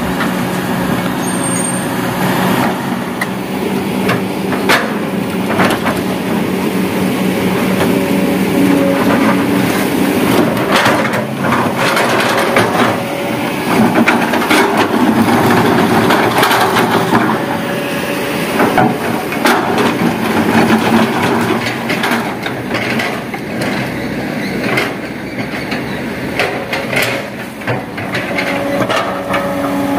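Kobelco hydraulic excavator's diesel engine running and working under load, its pitch rising and falling as it digs, with repeated clatter and knocks of stone and soil.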